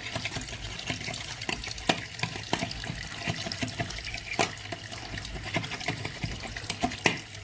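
Bathroom vanity faucet running into the basin with a steady splashing hiss, the water coming through freely now that the clog is cleared. A few sharp clicks or knocks sound now and then over it.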